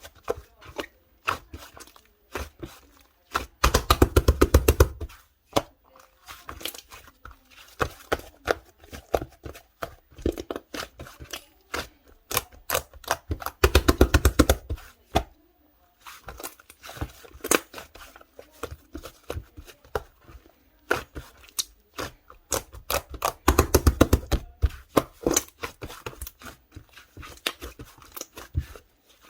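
Slime being squished and poked by hand, making sticky clicks and small air-bubble pops. Three times, about ten seconds apart, it breaks into a dense burst of crackling pops as it is pressed and folded.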